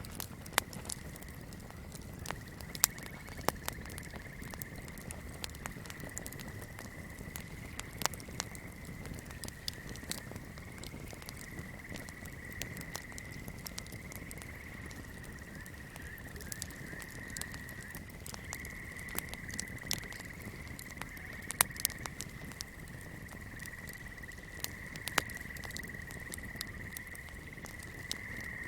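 Swamp ambience: a steady, high-pitched chorus holds at one pitch throughout, under sharp, irregular crackles and pops from a small fire, here a candle flame.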